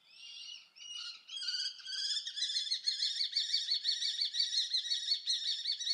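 Common kestrel calling: a rapid, even series of short, high-pitched call notes, several a second, that starts softly and builds up over the first two seconds, then runs on steadily.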